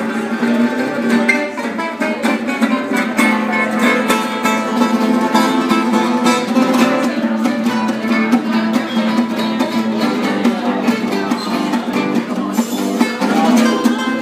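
Two acoustic guitars playing together: rhythmic strumming under a picked melody.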